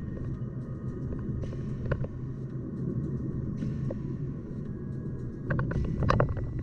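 Car driving on city streets: a steady low road and engine rumble, with a few sharp knocks and rattles from the road, bunched together around six seconds in.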